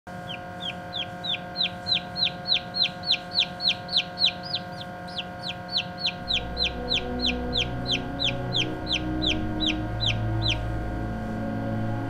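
Turkey poult peeping steadily at hatching time, about three short high peeps a second, each dropping in pitch, fading and stopping near the end. Soft music comes in about halfway.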